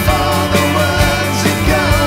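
A recorded rock song playing, with a steady drum beat under bass and a bending melodic line.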